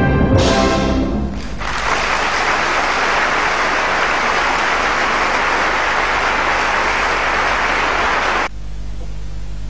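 An orchestra's music stops and a theatre audience applauds steadily for about seven seconds. The applause cuts off suddenly near the end, leaving a low hum.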